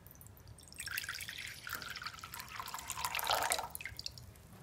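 Water poured into a bowl: a splashing trickle that starts about a second in, grows louder and deeper in tone, and stops shortly before the end.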